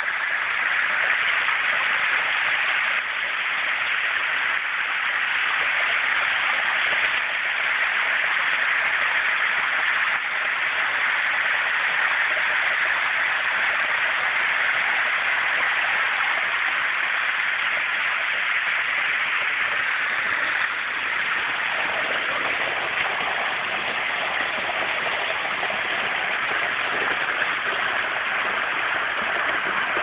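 Small waterfall spilling over an earthen bank and splashing into icy water: a steady rush of falling water, fuller and deeper from about two-thirds of the way in.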